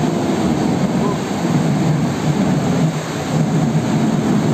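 Loud, steady rushing of a flash flood: muddy floodwater pouring down a street as a torrent.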